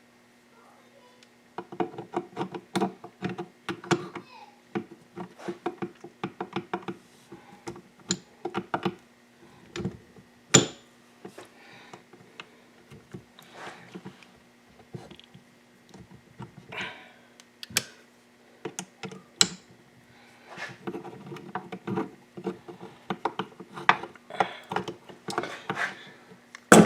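Metal engine parts clicking, clinking and knocking as the shift drum and its parts are worked into a dirt-bike crankcase half by hand, in two busy spells with a few louder single knocks between, over a faint steady hum.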